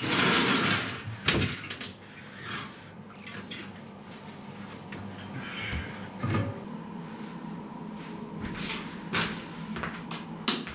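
A sliding whiteboard panel is pushed along its track with a loud scrape, then knocks to a stop about a second and a half in. Fainter knocks and shuffles follow.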